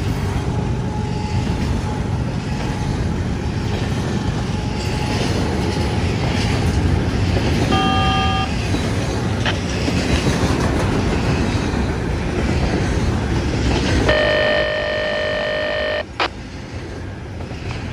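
Double-stack intermodal freight cars rolling past close by: a loud, steady rumble of steel wheels on rail. A horn sounds briefly about eight seconds in, and again for about two seconds near the end.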